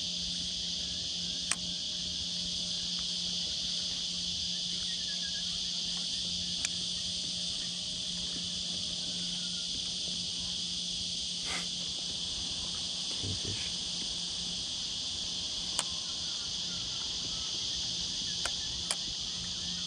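Steady, even, high-pitched chorus of insects, with a few faint sharp clicks scattered through it.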